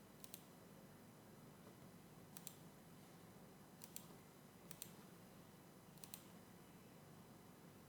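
Faint clicks of a computer mouse, about five double clicks spaced a second or more apart, over near-silent room tone.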